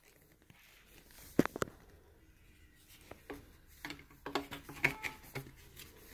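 Hard plastic vacuum-cleaner parts being handled and pushed together to test the fit: two sharp clicks about a second and a half in, then a run of short knocks and clicks near the end.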